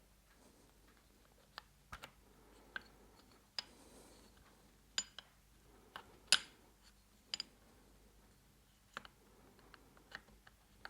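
Scattered light metallic clicks and clinks as parts of a Moki 215cc radial engine are handled during teardown, a dozen or so separate taps, a couple of them with a brief high ring.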